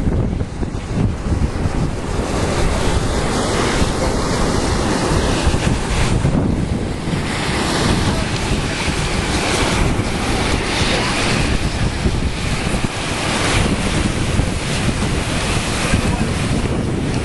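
Wind buffeting the microphone: a loud, uneven rumbling rush.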